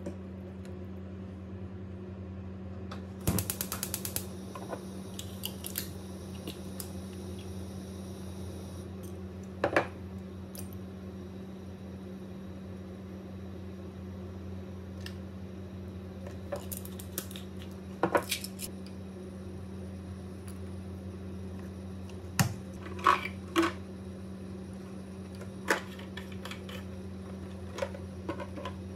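Kitchen work: scattered clinks and taps of dishes and utensils over a steady electrical hum, with a quick run of rapid clicks about three seconds in.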